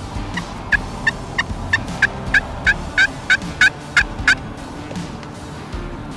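A run of about a dozen turkey yelps, about three a second, growing louder toward the end.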